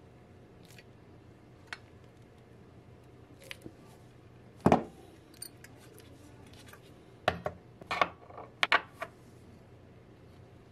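Pliers and heavy pressed-steel toy truck parts clicking and knocking together as they are handled and fitted. There are scattered sharp clicks, the loudest about halfway through, then a quick run of several more in the last third.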